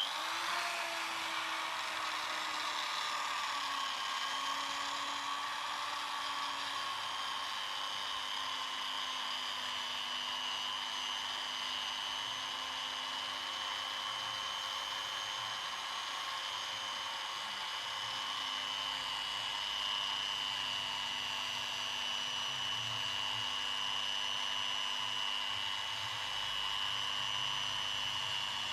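Electric drill spinning a homemade cloth buff to polish a motorcycle's metal engine block with Autosol. A steady motor whine that dips slightly in pitch over the first few seconds and then holds.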